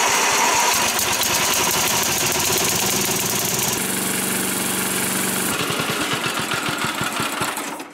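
8 hp Briggs & Stratton engine on a Dynamark riding mower, running on fresh fuel with steady spark from a replacement ignition coil. About halfway through its sound changes as the throttle lever is moved. Just before the end it dies as the throttle is pulled all the way off, because no kill wire is connected yet.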